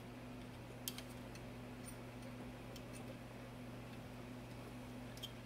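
Faint handling of wires and connectors at the back of a CRT chassis: one sharp click about a second in and a few lighter ticks, over a low steady hum.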